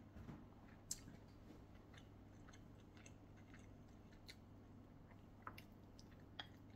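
Very faint eating sounds: quiet chewing with a few soft clicks, the sharpest about a second in, over a low steady hum.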